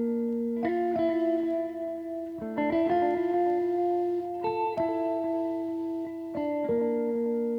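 Background music: a guitar playing slow, sustained chords, a new chord struck every second or two.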